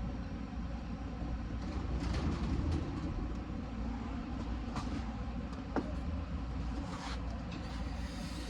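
Several short hissing bursts of lice spray on a young pigeon, spaced a second or more apart, over a steady low rumble.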